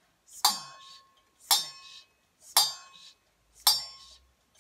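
A small stainless steel bowl hung on a string and struck with a metal spoon: four ringing clinks about a second apart, each with a clear bell-like tone that dies away quickly. The clinks are a sound effect for splashing through a river.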